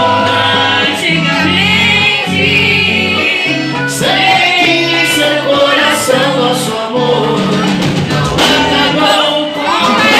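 Live amplified band music with a lead singer: held bass notes under a sung melody, with a few sharp drum or cymbal hits.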